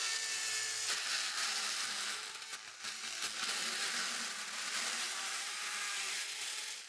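Bosch NanoBlade cordless mini chainsaw running and cutting through a plastic CD jewel case and the disc inside, a steady whirring rasp that stops near the end.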